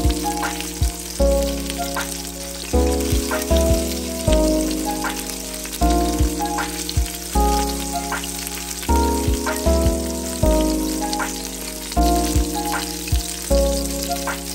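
Sausages sizzling as they brown in the Ninja Foodi Max's pot, a fine crackle heard under louder background music whose sustained chords change about every second and a half.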